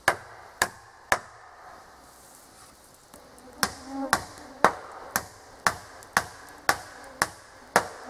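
Hammer driving nails into wooden boards: three blows, a pause of about two seconds, then a steady run of nine blows at about two a second, each with a short ring.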